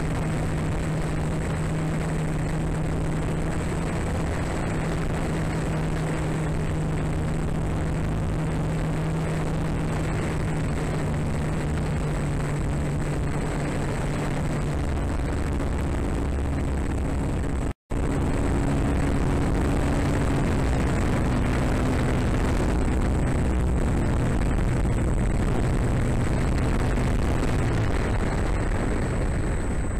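The motor and propeller of a scale Drifter model aircraft drone steadily in flight under a rush of wind on the tail-mounted camera, with a thin high whine. Just past the middle the sound cuts out for an instant, and afterwards the drone's pitch sits a little lower.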